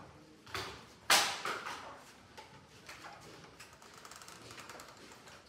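Footsteps and small knocks as people pass through a doorway, with one sharp, loud knock about a second in that rings out briefly, followed by lighter ticks and clicks.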